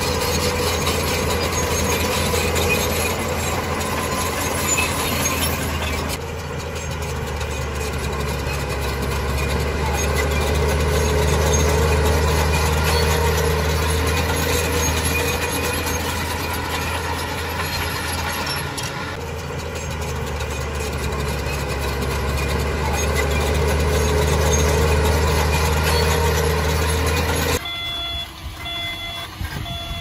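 Heavy diesel engine of an earth-moving machine running steadily under work, its pitch shifting slightly. Near the end the engine sound drops suddenly and a reversing alarm beeps repeatedly.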